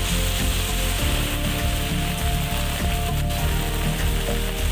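Heavy rain falling steadily on a street and pavement, an even hiss, with background music of held notes underneath.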